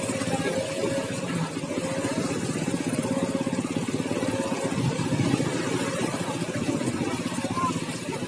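A vehicle engine running steadily with an even, rapid putter.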